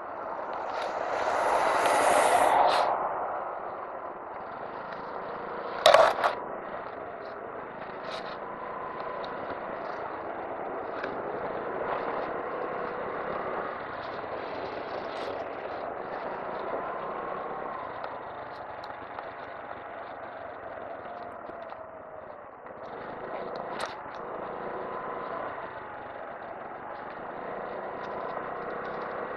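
Honda Navi 110's small single-cylinder engine running under way at town speeds, its note drifting gently up and down, with road and wind noise. A loud rush of noise swells and fades in the first few seconds, and a sharp knock sounds about six seconds in.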